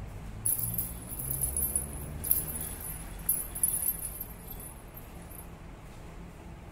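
Small jingle bell on a dangling cat toy jingling as a cat bats at it, in bursts of bright ringing about half a second in to two and a half seconds and again around three to four seconds, then dying away as the toy swings free.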